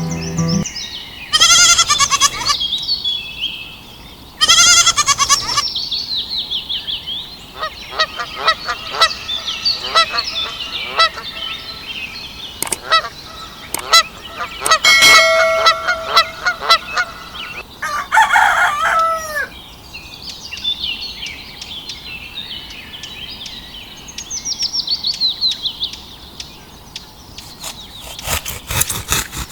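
Birds calling and chirping: many short chirps, with a few louder, drawn-out calls about one and a half, four and a half, and eighteen seconds in.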